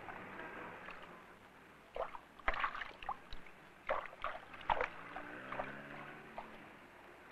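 Water splashing and sloshing in a string of irregular sharp splashes, over a faint wash of noise. A low droning tone comes in about five seconds in and rises slightly.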